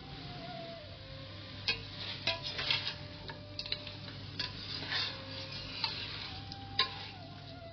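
Metal spoon clinking and scraping against the inside of a stainless-steel pressure cooker while chicken pieces are stirred, in irregular clinks starting a couple of seconds in.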